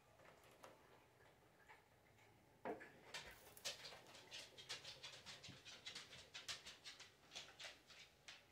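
Faint, quick, even panting, about four breaths a second, beginning just after a single knock about a third of the way in.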